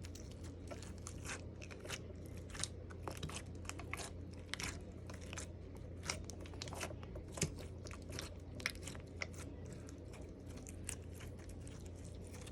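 Slime being squeezed and worked by hand, giving a quick, irregular run of small crackling clicks and pops.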